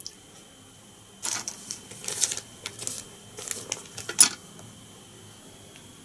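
Crisp rustling and clicking from fly-tying materials and tools being handled at the bench. It comes in a cluster of short bursts lasting about three seconds and ends in one sharp click.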